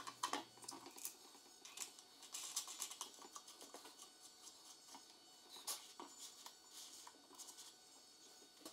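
Faint scattered clicks and taps of hand-fitted parts: a stop plate being set on a jig table and a plastic star knob being threaded onto the bolt that locks it in the slot.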